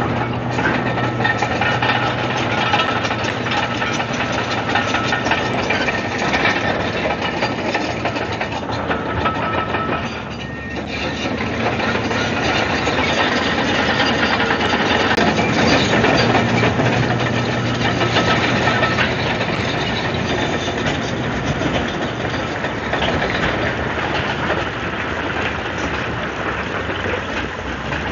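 Komatsu D155AX-7 crawler bulldozer at work: its diesel engine running steadily with the clanking clatter of its steel tracks. The engine sound dips briefly about ten seconds in, then comes back up.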